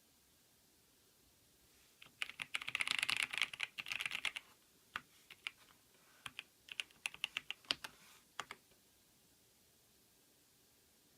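Typing on a Keychron V6 Max mechanical keyboard with Gateron Brown tactile switches. It starts about two seconds in with a fast run of keystrokes, then slows to separate key presses that stop about a second and a half before the end.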